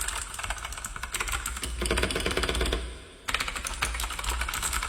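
Fast typing on a Gamen Titan V mechanical keyboard with clicky blue switches: a dense, loud run of sharp key clicks, with a brief pause about three seconds in.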